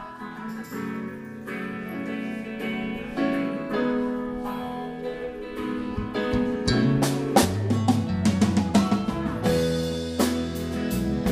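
Live rock band playing the opening of a song: electric guitar notes first, then drums and bass guitar joining in about seven seconds in, the music growing steadily louder.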